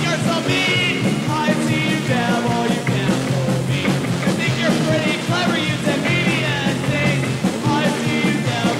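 Punk rock band playing a song, dubbed from a 1986 cassette demo tape, loud and steady.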